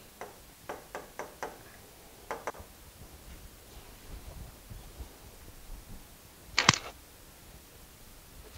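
A series of light clicks and taps from a stylus on an interactive display screen during writing, followed about seven seconds in by a single louder knock.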